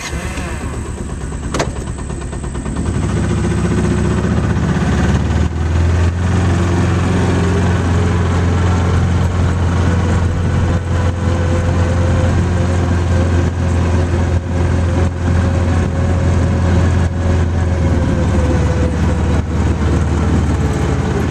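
Utility vehicle (mule) engine starting up and building over the first few seconds, then running steadily as the vehicle drives along.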